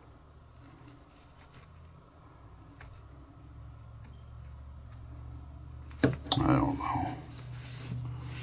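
Quiet bench work: a low hum with a few faint clicks of small tools and parts being handled. About six seconds in there is a sharp click, followed by a brief murmur of a man's voice.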